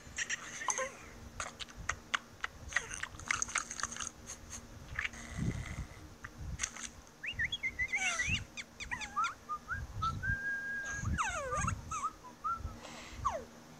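Cartoon character vocal sound effects from animated larvae. A run of quick clicks comes first, then high, squeaky whines and squeals that glide up and down in pitch.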